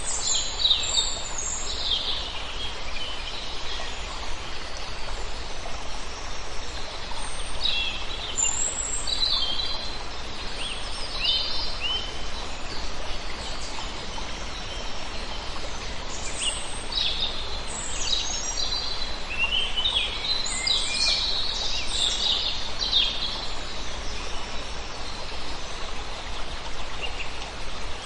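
Forest birds chirping and trilling in bursts, several calls overlapping, over a steady rush of flowing water.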